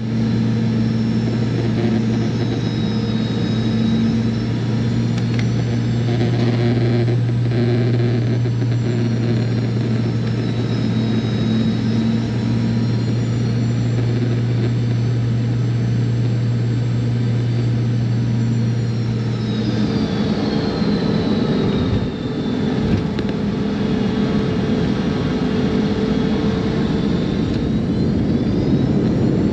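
Boeing 717-200's rear-mounted Rolls-Royce BR715 jet engines heard from inside the cabin on final approach: a steady low hum with high whining tones that rise and fall. About two-thirds of the way in, the hum gives way to a rougher rumble as the airliner touches down and rolls on the runway, with a single knock shortly after.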